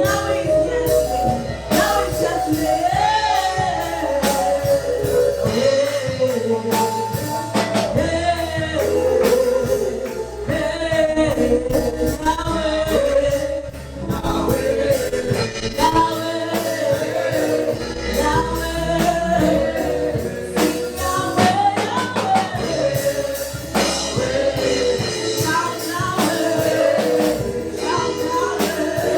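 Gospel praise music: a choir singing over a live church band with bass, drums and tambourine, at a steady beat.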